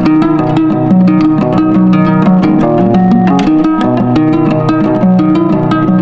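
Background music: fast plucked acoustic guitar with a bass line, in a flamenco-like style.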